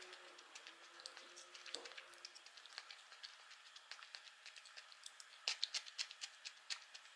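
Faint clicks and light clinks of a metal fork against a ceramic plate and a small glass dish, with a quick run of louder clicks about five and a half seconds in.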